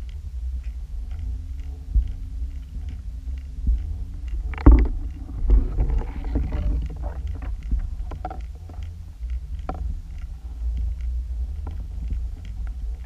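Steady low rumble of water moving past an underwater camera housing as the lures are pulled along, with faint regular ticking. A sharp knock about four and a half seconds in, followed by a couple of seconds of rattling.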